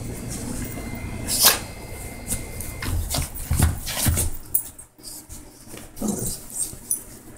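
A small dog digging and pawing at a fleece blanket on a bed: bursts of rustling and scratching, with soft thumps in the middle, quieter towards the end.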